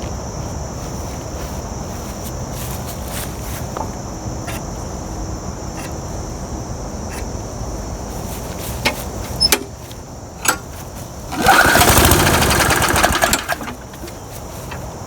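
Murray push mower's engine pull-started: a few clicks, then about two seconds of loud cranking and firing roughly eleven seconds in that dies away without the engine staying running. The owner blames fuel starvation from a faulty fuel pickup tube in the carburetor.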